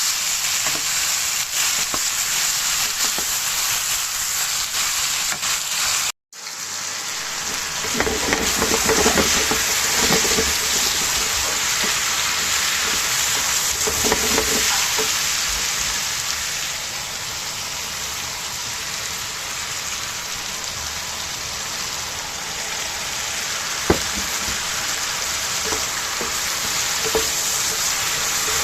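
Food sizzling and frying in a pan as a steady hiss, which drops out briefly about six seconds in. There is one sharp click near the end.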